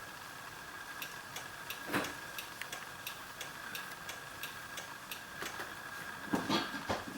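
Car turn-signal flasher ticking steadily, about three clicks a second, over a faint steady high tone, with a few heavier knocks about two seconds in and near the end.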